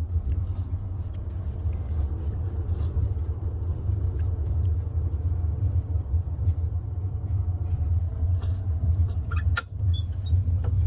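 Steady low rumble of a moving passenger sleeper train heard from inside the carriage, with a sharp click about nine and a half seconds in.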